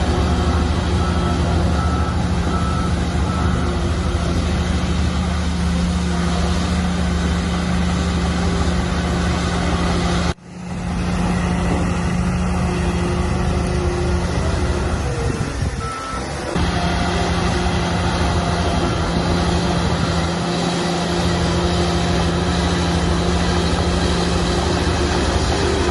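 Heavy diesel construction machinery running steadily with a deep engine hum, and a backup alarm beeping during the first few seconds. The sound cuts out abruptly about ten seconds in, then picks up again.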